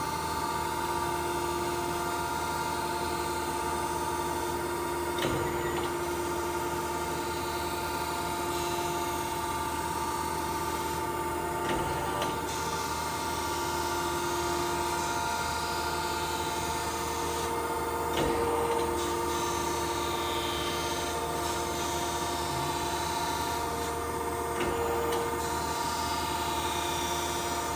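A 1992 Okamoto ACC-2040DX2 hydraulic surface grinder running in automatic mode: a steady spindle and hydraulic hum with a constant whine. A short knock comes about every six to seven seconds, typical of the hydraulic table reversing at the end of each stroke.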